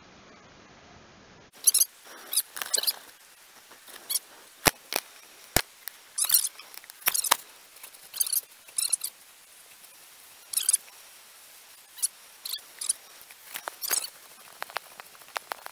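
Irregular short scratchy rustles and squeaks close to the microphone, with two sharp clicks about five seconds in: handling noise from the camera being moved about with the fishing rod.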